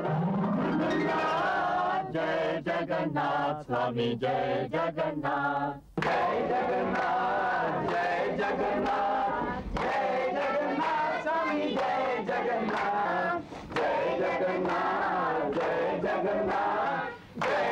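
A group of voices singing a devotional chant over musical accompaniment, with a steady percussion beat; the music breaks off briefly about six seconds in, then the singing resumes.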